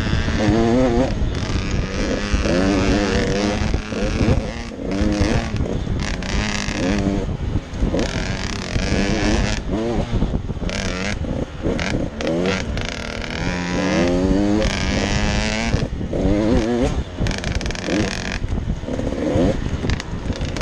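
A GasGas 85MX two-stroke motocross engine on the trail, revving up and easing off again and again as the rider works through the gears, with wind noise on the helmet microphone.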